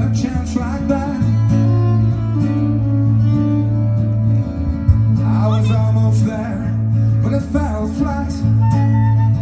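Live folk-rock band playing: strummed acoustic guitar, fiddle and bass guitar over drums, with held bass notes under a busy melody.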